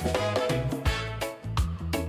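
Background music with a steady beat: bass, drums and a melodic line.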